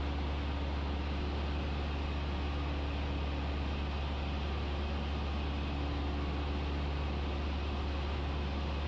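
Cessna 172's piston engine and propeller droning steadily in cruise, heard inside the cabin as an unchanging low drone under a constant hiss.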